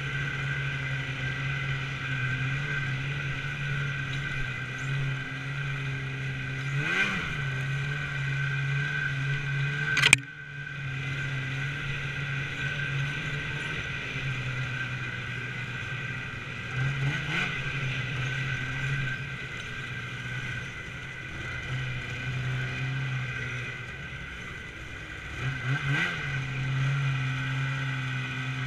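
Snowmobile engine running steadily at trail speed, revving up and easing back three times. There is a single sharp knock about ten seconds in, the loudest sound, after which the engine briefly drops away.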